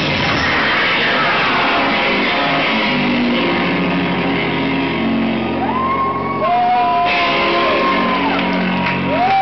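Loud live noise music from a noise band's amplified electronics: a dense wash of distorted noise with a falling sweep early, then held low droning tones, and wavering higher tones sliding up and down from about six seconds in.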